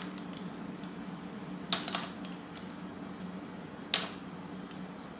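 Ice cubes being scooped with a metal spoon and dropped into a plastic container: a few sharp clinks, a pair just under two seconds in and a louder one about four seconds in, over a steady low hum.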